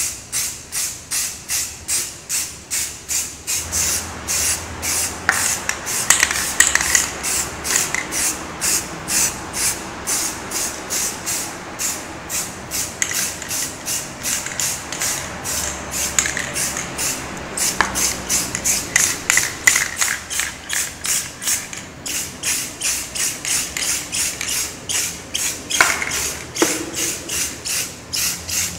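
An aerosol can of Rust-Oleum spray primer being shaken, its mixing ball rattling at about four to five strokes a second, broken by short hisses of spray.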